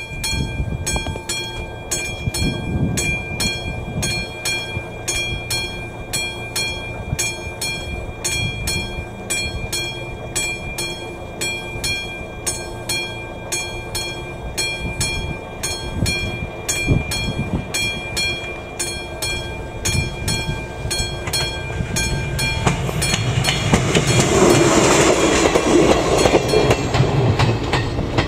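Classic level-crossing warning bell striking steadily at about two or three strokes a second, stopping about 23 seconds in as the warning lights switch off. After it stops, a louder rushing noise swells for a few seconds.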